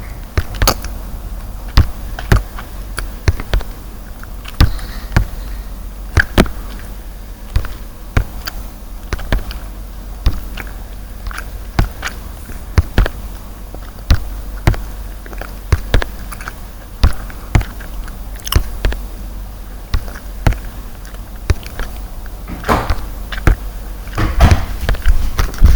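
Plastic Rubik's cube being handled and turned: sharp, irregular clicks and clacks, about one or two a second, coming thicker near the end.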